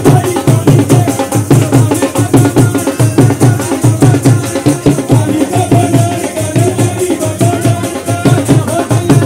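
Live Punjabi Malwai gidha folk music: a dhol beaten in a steady, fast rhythm, with hand clapping and a man singing into a microphone over the drum.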